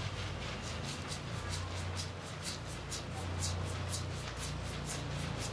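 Fingers scrubbing a lathered scalp during a shampoo, making soft rhythmic swishes about twice a second, over a steady low hum.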